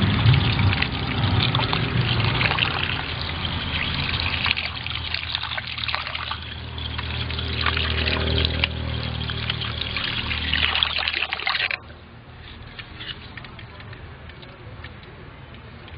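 Running water pouring into an aluminium bowl as hands scrub raw sea crabs, the shells clicking against the metal. About twelve seconds in the pouring cuts off suddenly, leaving quieter sloshing and drips.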